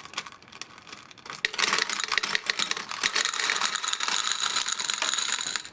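0.62-inch gumballs being poured into a gumball machine's acrylic globe: a dense clatter of many small hard balls striking plastic and each other. It begins as a few scattered clicks, swells into a steady heavy pour about a second and a half in, and cuts off sharply near the end.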